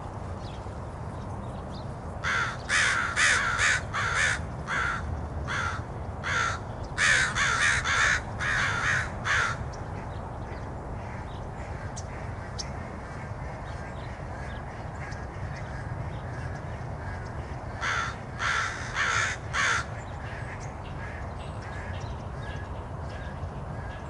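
Crows cawing: a long run of about fifteen harsh caws over some seven seconds, then, after a pause of about eight seconds, a shorter run of about five caws. A steady low background rumble runs beneath.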